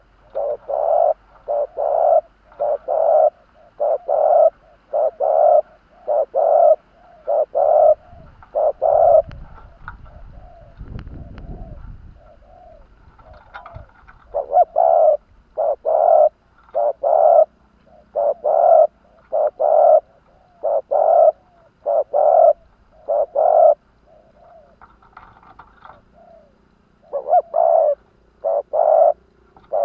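Spotted dove (decoy cu gáy) cooing in a long, even series of short coos, roughly one a second, pausing briefly twice; this is the calling used to draw in wild doves. A faint low rumble is heard briefly around ten seconds in.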